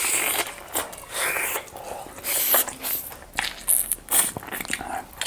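Close-miked eating sounds from a person chewing and smacking, with irregular clicks and several short hissing sounds.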